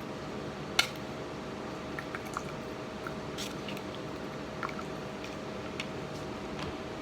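Kitchen handling noises over a steady hum: one sharp clink about a second in, then a few light taps and clicks spread through the rest.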